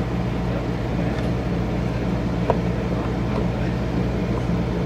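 Steady low mechanical drone, engine-like, with a faint click about two and a half seconds in.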